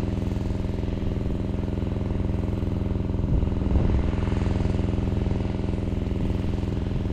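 A small engine running steadily at a constant speed, with a brief clatter between three and four seconds in.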